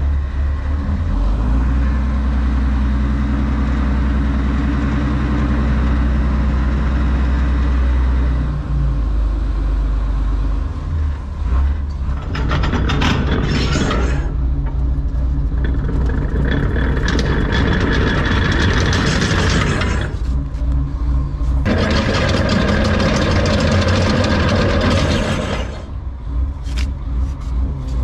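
Dutch barge's diesel engine running steadily, its low note shifting between about eight and eleven seconds in. In the second half, three stretches of louder rushing noise of a few seconds each lie over it.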